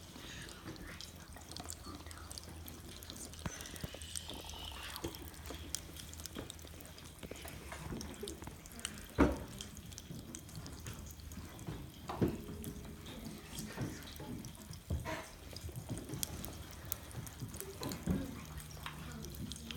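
Homemade fizzy drink fizzing: a steady fine crackle of tiny bubble pops, with a few louder sharp knocks, the loudest about nine seconds in.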